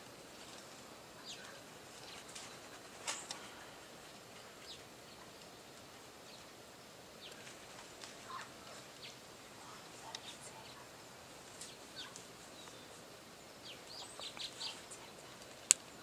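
Feral parrots feeding in a loquat tree give faint, scattered short calls and chirps, more of them bunched together near the end. A single sharp click sounds just before the end.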